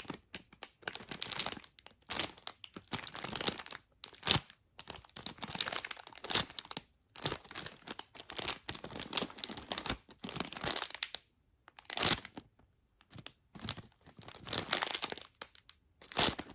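Thin plastic packaging crinkling in irregular bursts of about a second, with short pauses between, as a squishy toy is handled.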